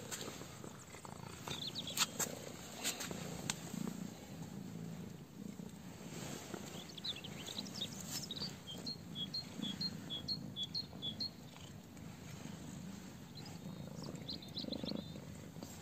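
Domestic cats making a low, continuous rumble in the throat while being fed by hand. A rapid series of faint high chirps comes about halfway through.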